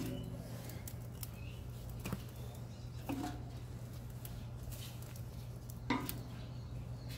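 Split firewood pieces knocking against the steel firebox of a grill built from an old compressor tank as they are set onto the fire: a few knocks, about two, three and six seconds in, each with a brief metallic ring from the tank.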